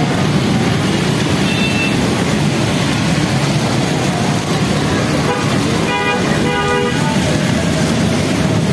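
Motorcycle and car engines running in slow traffic through floodwater, a steady din. A vehicle horn sounds for about a second around six seconds in.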